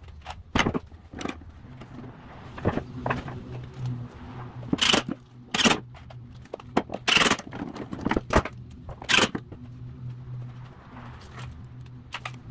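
Steel bar clamps being handled and taken off a wooden tool chest: a series of sharp metallic clacks and rattles, the loudest four in the middle, over a low steady hum.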